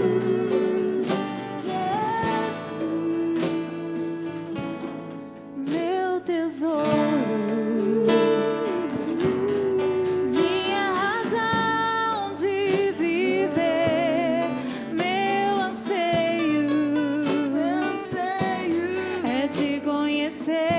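Live acoustic worship music: a voice singing a melody with vibrato over acoustic guitar.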